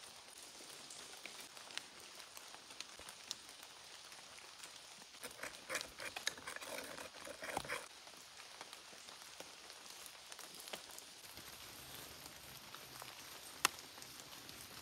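A wooden spoon clinking and scraping in a small clay bowl for a few seconds as seasoning is mixed, against faint outdoor ambience with scattered light ticks; one sharp tap near the end.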